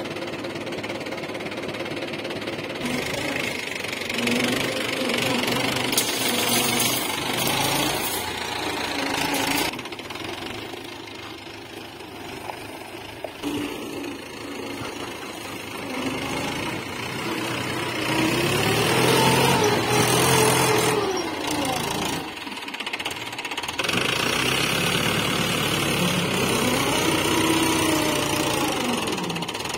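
Mahindra 475 DI tractor's diesel engine running, revved up and back down twice in the second half.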